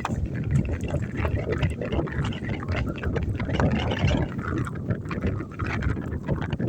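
Blizzard wind buffeting the microphone, a steady low rumble with uneven gusts and a few faint clicks on top.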